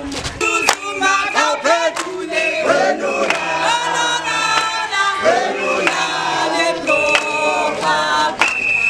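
Crowd of marchers singing and chanting together, many voices overlapping, with a shrill held note near the end.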